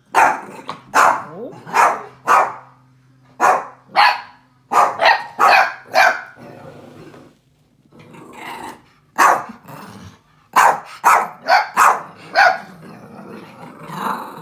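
Young dogs at play, a German shorthaired pointer puppy and a Yorkshire terrier: sharp barks in quick runs of several, with growling between. There is a lull of a couple of seconds about halfway through.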